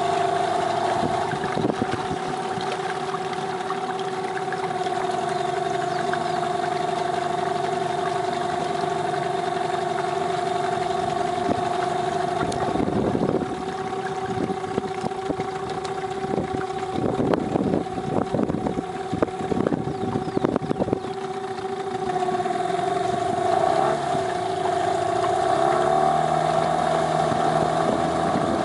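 Brand-new, zero-hour Parsun 15 hp outboard motor running steadily at low throttle, with a stretch of irregular thumps in the middle. Near the end the engine note shifts and grows louder as the boat gets under way.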